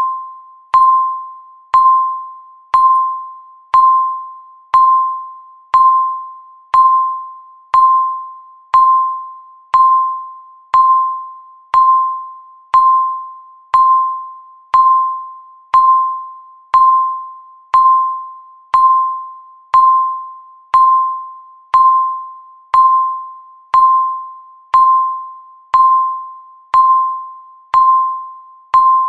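Countdown timer tick: a short chime-like electronic tone on one pitch, struck once every second and fading quickly before the next.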